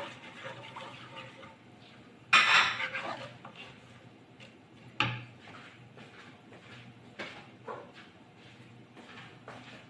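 Kitchen clatter of utensils and cookware knocking together. There is a loud rattle about two seconds in, a sharp clink about five seconds in, and a few lighter knocks later.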